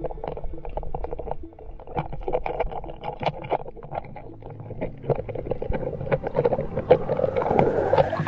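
Muffled underwater sound recorded through a camera housing: scattered crackling clicks over a low wash of water noise. A rush of air bubbles swells over the last second or so.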